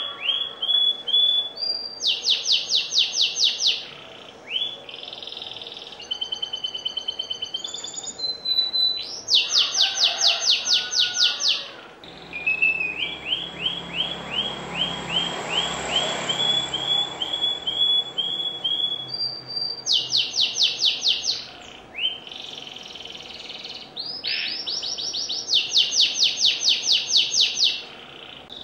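Domestic canary singing a long, varied song built of trills: each phrase is a quick run of identical repeated notes, some rising and some level, and phrases follow one another with brief pauses. The bird is in full, energetic song.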